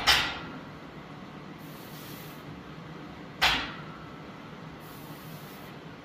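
Barbell set down on a power rack's safety pins between rack-pull reps: two sharp knocks about three and a half seconds apart, each ringing out briefly, over a steady low hum.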